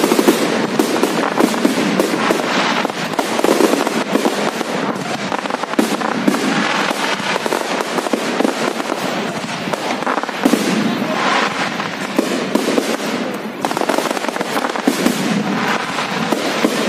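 Fireworks display at full intensity: many shells bursting at once in a rapid, unbroken crackle of bangs and popping stars, with no pauses.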